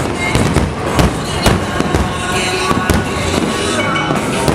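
Aerial firework shells bursting in quick succession: a dense string of sharp bangs, several close together at times, over show music.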